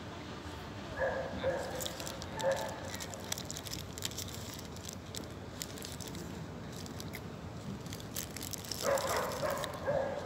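Paper burger wrapper crinkling and rustling in the hands as the burger is unwrapped and eaten. A dog gives short barks about a second in and again a little later, and a longer run of calls near the end.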